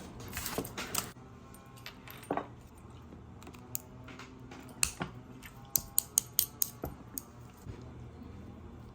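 Light, sharp clicks and taps of plastic food containers and packaging being handled and opened, with a quick run of clicks about five to seven seconds in.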